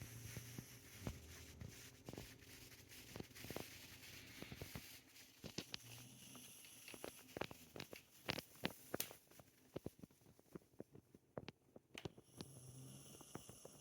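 Dog snoring softly: a low, faint snore near the start, again about six seconds in and once more near the end, with scattered faint clicks in between.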